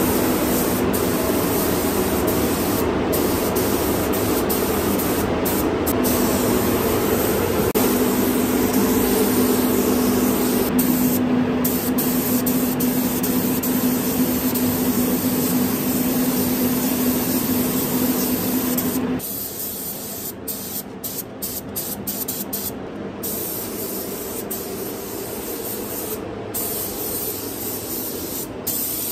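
Compressed-air spray gun hissing steadily as it sprays epoxy primer, with a steady low hum under it. The sound drops quieter, and the hum stops, about two-thirds of the way through.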